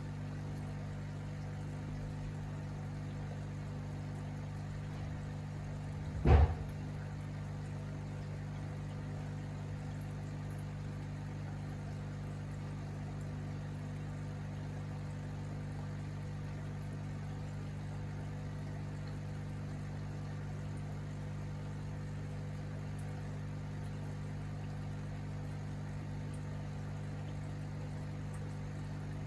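Aquarium air pump running, a steady low hum under faint bubbling water. A single loud thump about six seconds in.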